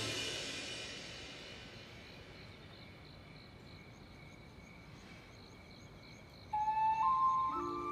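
Background music fades out, leaving quiet night ambience with crickets chirping in an even, repeating pulse. About six and a half seconds in, soft music with sustained bell-like tones comes in and steps up in pitch.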